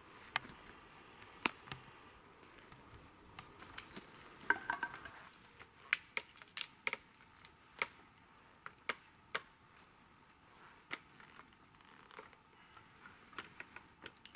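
Irregular sharp clicks and light knocks of boots and wooden poles as a man climbs a homemade ladder of wooden poles, about a dozen separate ticks spread unevenly.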